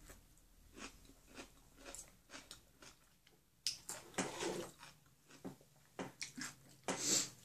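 Chewing a crunchy pickle slice: a close run of small, crisp crunches, with louder ones about four seconds in and again near the end.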